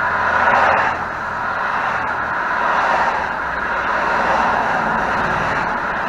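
Steady rush of busy highway traffic passing close by, tyre and engine noise swelling and easing as vehicles go past, loudest in about the first second.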